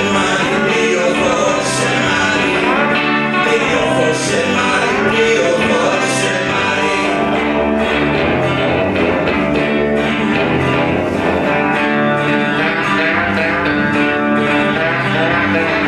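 Guitar-led pop-rock band music with drums, and a voice singing through roughly the first half.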